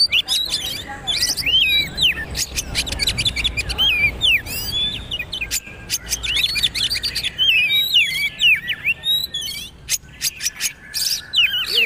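Oriental magpie-robin (kacer) singing a rapid, varied song of whistled notes that glide up and down, mixed with sharp clicking notes.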